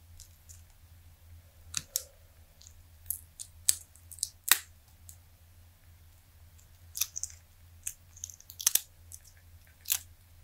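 Silicone mold being flexed and peeled off a cured resin die: irregular sharp crackles and snaps as the silicone comes away from the hard resin, with the loudest pops a few seconds in and near the end.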